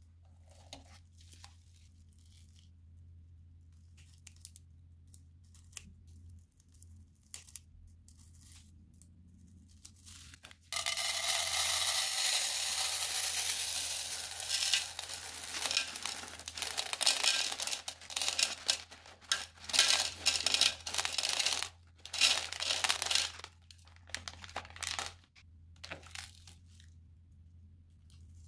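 Tiny plastic beads pouring out of a cut piping bag into a bowl. A dense rattling hiss starts suddenly about a third of the way in and holds for a few seconds, then breaks into repeated shorter pours as the bag is tipped and shaken. Before it there are only faint crinkles and clicks of the plastic bag being handled.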